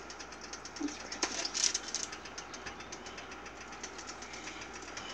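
Breaded chicken pieces frying in hot oil, a steady fast crackle and sizzle that surges louder between about one and two seconds in and again at the very end, as further pieces are lowered into the oil.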